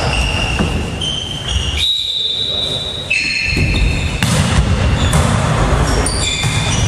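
Indoor volleyball rally: the ball being struck and bouncing, with repeated short high squeaks and knocks from play on the wooden court floor and players calling out, all echoing in a large gym hall.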